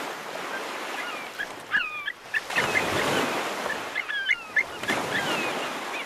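A flock of birds calling, with many short sliding calls scattered throughout, over a steady wash of surf that swells about halfway through.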